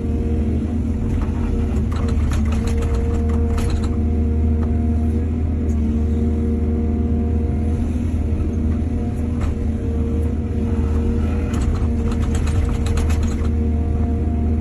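Diesel engine of a hydraulic excavator running steadily, with two spells of rapid rattling clatter, one a couple of seconds in and one near the end.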